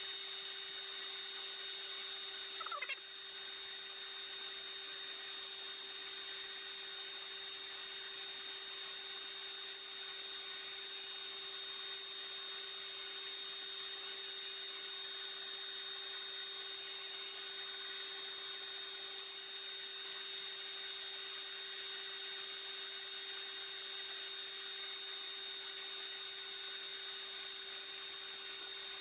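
Metal lathe running steadily while a boring bar cuts the bore of an aluminum spacer: an even machine whine with a high tone over a lower hum, and a brief rising chirp about three seconds in.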